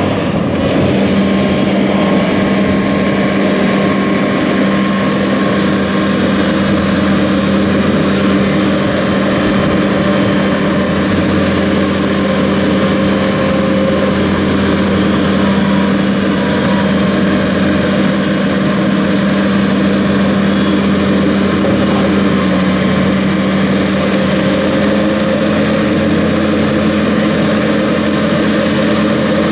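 Bobcat T650 compact track loader's diesel engine running steadily at a constant speed, with a slight change in pitch about three-quarters of the way through.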